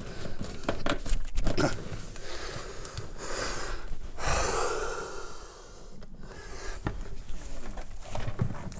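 A man breathing heavily, with a long exhale about four seconds in, while bent over in an awkward position, mixed with a few small knocks from handling cables.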